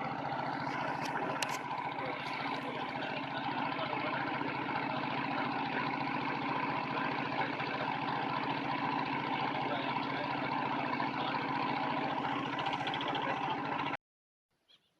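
An engine running steadily at one constant speed, with an even pulsing beat. It cuts off abruptly about a second before the end.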